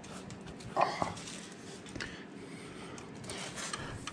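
Quiet rubbing and handling noise from a hand tool being worked on a very tight motorcycle fairing screw. One short, louder sound comes a little under a second in, and a small click about two seconds in.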